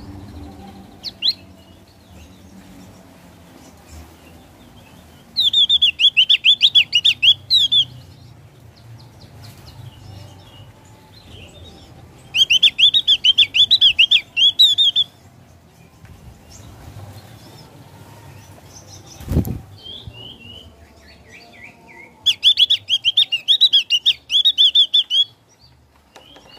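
Javan grey-throated white-eye (opior jawa) singing three bursts of rapid, high, chattering song, each two to three seconds long. Between the bursts come a few short single calls, and there is one sharp knock about two-thirds of the way through.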